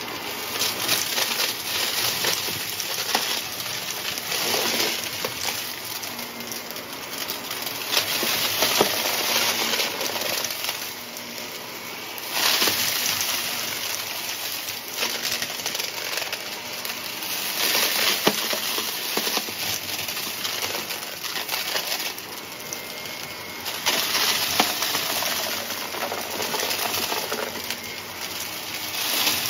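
Shark upright vacuum running with its brushroll on, crunching and rattling through thick dirt and hard debris on carpet, with many sharp clicks as bits are flung and sucked up. The crunch swells and eases as the head is pushed back and forth.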